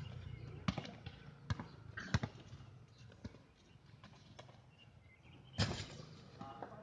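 Basketball bouncing on a hard outdoor court: a few separate thuds at uneven intervals, the loudest about five and a half seconds in.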